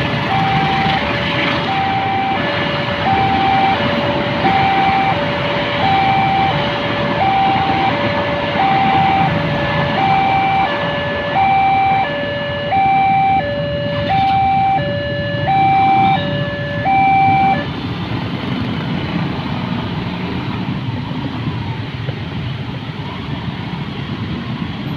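Railway level-crossing warning alarm sounding an electronic two-tone high-low signal, about one high-low cycle per second, warning that a train is coming. It cuts off about 17 seconds in, leaving busy road traffic noise.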